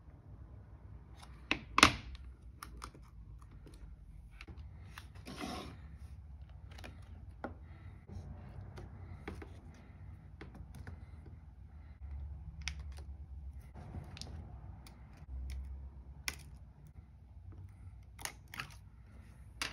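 Scattered light clicks and taps from hands handling an iPad Air and its loose parts during a screen repair, with one sharp click about two seconds in.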